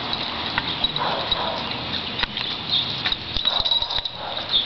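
Scattered light clicks and taps from a dog moving about on a concrete walk, over a steady outdoor background hiss.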